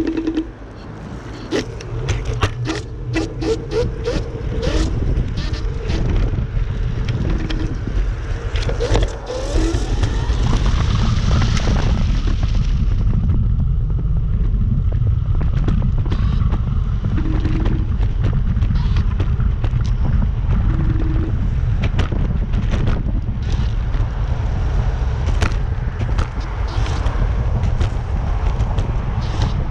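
Dualtron Compact electric scooter ridden in the rain: a steady heavy rumble of wind and road noise, with scattered sharp clicks and rattles, most of them in the first half, and a whine rising for a few seconds about nine seconds in.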